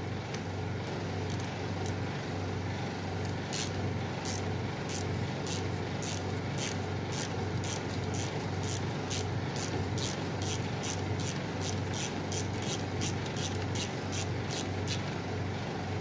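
Hand ratchet clicking in short, even strokes, about three a second, as it turns a bolt on a brake caliper held in a vise. A steady low hum runs underneath.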